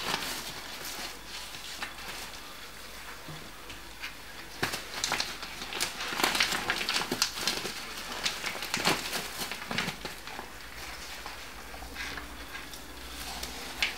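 Crinkling and rustling of a clear plastic food packet handled by gloved hands, with many small crackles, busiest in the middle stretch.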